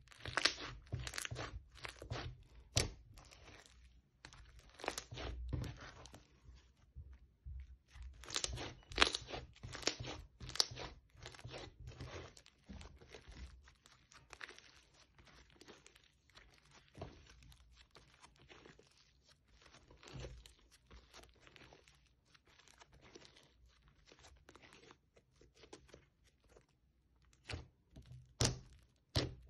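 Bead-filled crunchy slime being kneaded, squeezed and stretched by hand: dense, irregular crunching and crackling of the beads, with dull thumps as it is pressed down. The crunching comes in busier bursts at the start, about a third of the way through and near the end, and is sparser in between.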